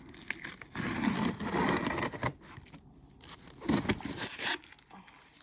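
Packaging being handled: rustling and crinkling of wrapping with some scraping, in two louder stretches, about a second in and again near four seconds.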